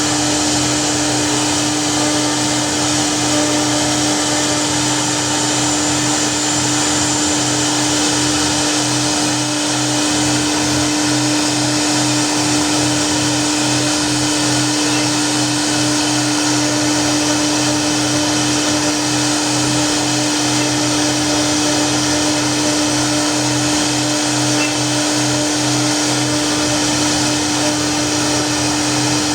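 CNC router spindle running steadily: a constant pitched hum over an even rushing noise, with a faint fast pulsing underneath.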